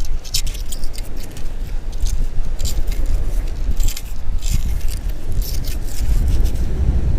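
Wind buffeting the microphone as a gusty low rumble, with repeated short hissing rattles of sand being shaken through a sand scoop.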